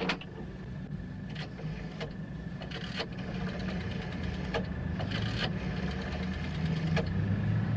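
Rotary telephone dial on a public call-box payphone being dialled: the dial is pulled round and released several times, each return giving a short run of ticks, over a steady low hum and a faint steady high tone.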